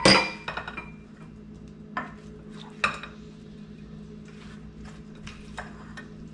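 A spatula stirring broccoli florets in a bowl: a sharp clack against the bowl at the start, then scattered light knocks and scrapes as the florets are tossed in a creamy dressing. A steady low hum runs underneath.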